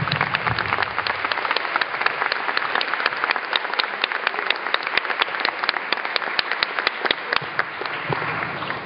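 Audience applauding: dense, steady clapping that thins out and fades near the end.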